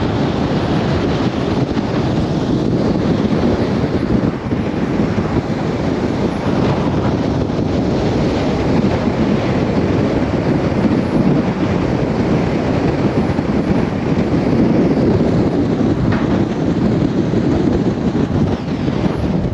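Wind buffeting the microphone of a camera on a moving vehicle, mixed with its road noise: a loud, steady rush with no break.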